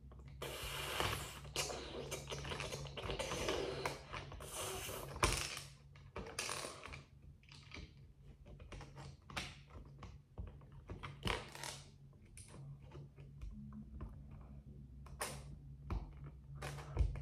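Loose plastic building bricks rattling and clicking as a hand rummages through a pile of them: a dense stretch of rattling over the first few seconds, then scattered single clicks.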